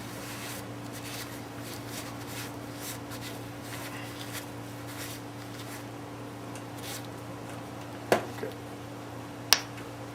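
Faint, irregular rubbing and scraping from hand work on the valves of a Ford 302 cylinder head during valve lapping, over a steady low hum. Two sharp clicks come near the end.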